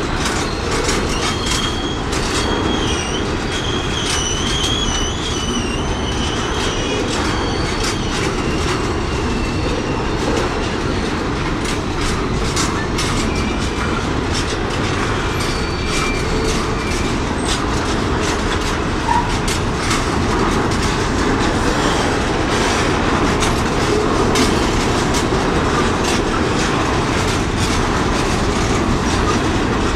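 Empty steel coal hopper wagons rolling past on a curve: a steady rumble of wheels on rail with quick clicks over the rail joints. A thin, wavering wheel squeal rises over it in the first few seconds and briefly again around the middle.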